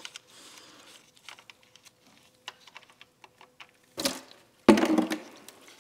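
Faint small clicks as the oil drain plug is worked loose by hand from the oil pan, then about four seconds in a sudden rush and splash as old engine oil gushes out into a plastic drain bucket.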